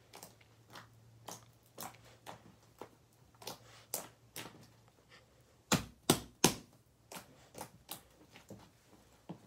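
White slime squeezed and kneaded by hand, giving a run of sticky clicks and pops about twice a second as air pockets burst, with three louder pops a little over halfway through.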